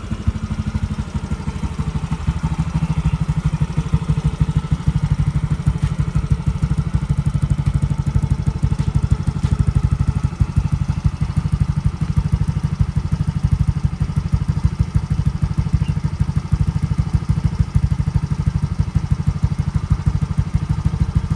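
Yamaha Mio i 125 scooter's single-cylinder four-stroke engine idling steadily after a cold start, its exhaust note coming through a JVT V3 adjustable aftermarket pipe.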